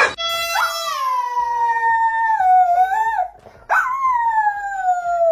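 A dog howling: two long howls, each sliding slowly down in pitch and lifting briefly at its end, with a short pause between them.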